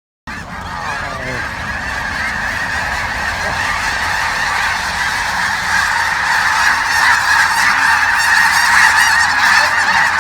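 A huge flock of geese calling all at once, a dense din of overlapping honks that grows louder.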